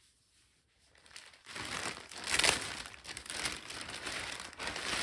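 Clear plastic garment bag around a knit sweater crinkling as it is handled and lifted, starting about a second and a half in and loudest near the middle.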